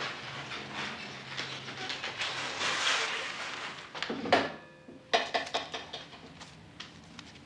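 Manual wheelchair rolling over a hard floor with rustling. About four seconds in comes a sharp knock at a wooden desk, and a second later another knock, followed by a run of smaller clicks and rattles as things at the desk are handled.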